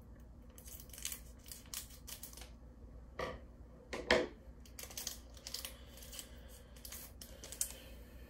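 Pokémon trading cards and foil booster packs being handled: an irregular series of short, light crinkles and clicks, with two louder ones about three and four seconds in.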